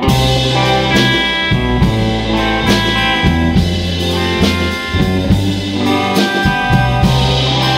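Instrumental band music with guitar, bass and a drum kit keeping a steady beat, with no singing.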